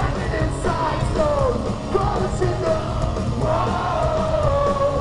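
Pop-punk band playing live at full volume, with a singer's yelled, sung vocal line over the band.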